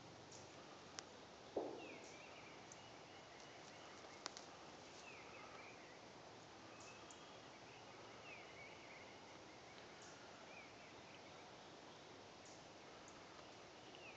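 Faint woodland quiet with a small bird giving short, falling chirps every second or two. A few faint clicks, and one soft rustle about one and a half seconds in that is the loudest sound.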